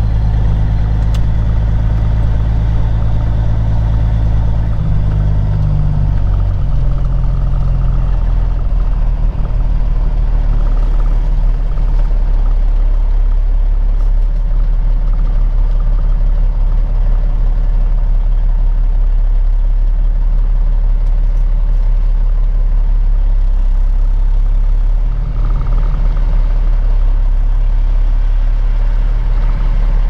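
Peterbilt 379 semi truck's diesel engine running at low speed while the truck is manoeuvred, heard from inside the cab; its note shifts lower about eight seconds in.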